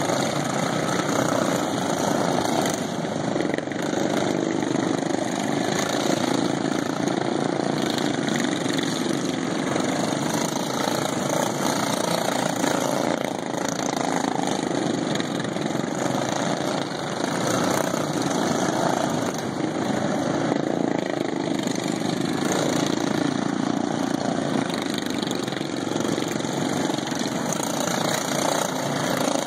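Several racing lawn mowers' factory-stock single-cylinder engines, governed to 3650 rpm, running together as the field laps the track, a steady blend of engine noise with no single machine standing out.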